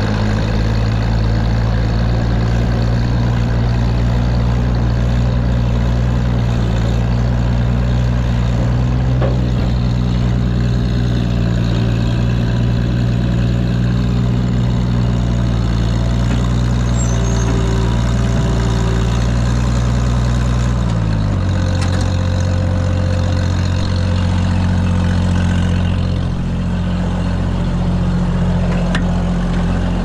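Oliver 1600 tractor's six-cylinder engine running steadily, dropping to a lower speed about two-thirds of the way through.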